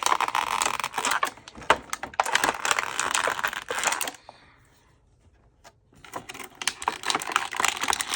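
Packaging being handled and pried at: a dense run of crinkling and small sharp clicks, pausing for about two seconds in the middle before starting again.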